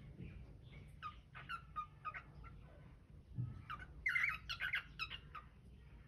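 Cockatiels chirping in a run of short calls that grows busier and louder about four to five seconds in.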